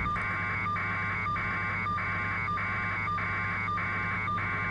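Repeating electronic buzzing tone pulsing evenly, about three pulses every two seconds, over a steady low hum.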